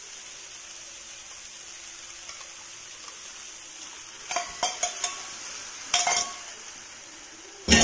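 Spice paste sizzling quietly in a wok. About four seconds in comes a cluster of metal clinks and scrapes as chicken is spooned from a metal bowl into the wok, then another clink about six seconds in and a loud metal clank right at the end.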